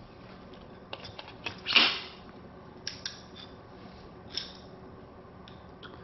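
Handling of a lightsaber hilt and its plastic day-blade tube: a few light clicks and knocks, with one short, louder scrape about two seconds in.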